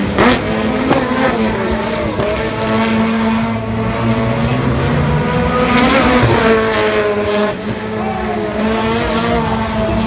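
Rallycross race cars' engines revving hard and changing pitch as they race around the track, several at once. One car's engine rises loudly as it passes close about halfway through. A single sharp bang comes right at the start.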